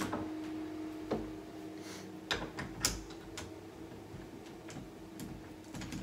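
Sharp metallic clicks and taps of chrome lever door handles being pushed onto a quick-fit latch from both sides of the door. The clicks come singly at uneven gaps, the loudest a little past halfway.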